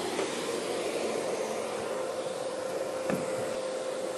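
Steady machine whir with a constant hum, with a light knock about three seconds in.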